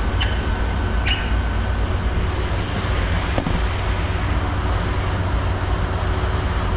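A machine runs steadily with a low rumble. A few short clicks and squeaks sound in the first second or so, and another click comes about three and a half seconds in.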